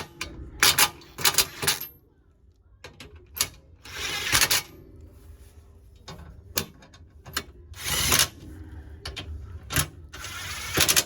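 Hand ratchet wrench clicking in short bursts as it runs down and snugs the bolts of a skid plate, with quieter pauses between the bursts.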